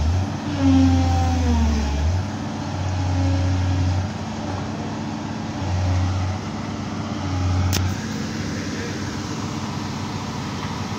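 Hydraulic excavator's diesel engine running and labouring in repeated surges as the boom and bucket push against the swamp mud to free the bogged machine. A single sharp click comes a little under eight seconds in.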